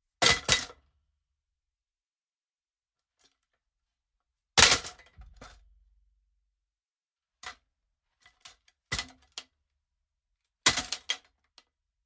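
Cartoon crash sound effect layered with a kick-drum pedal thump: several separate crashes, each a sharp hit followed by a quick run of smaller hits, with silences between. The loudest comes about four and a half seconds in, with a low thump lingering after it.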